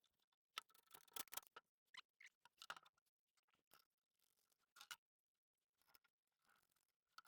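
Near silence with faint, scattered clicks and rustles.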